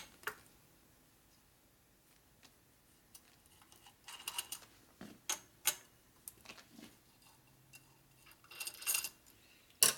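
Light metallic clicks and clinks of a T-handle hex key and small engine parts on an aluminium engine case. A few quiet seconds come first, then scattered taps, the loudest just before the end.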